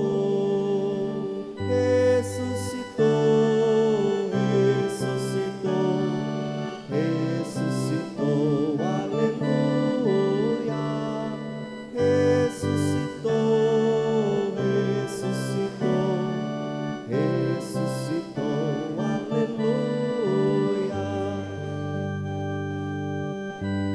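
Church music on an electronic organ: sustained chords changing every second or two over a low bass line, with a wavering melody above them.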